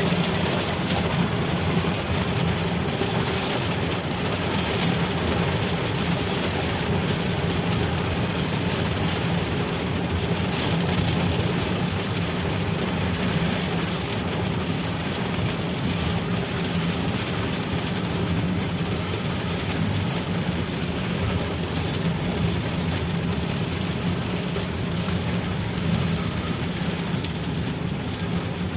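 Steady noise of a moving vehicle: an even engine drone under a constant hiss of wind and road noise, with no horn sounding.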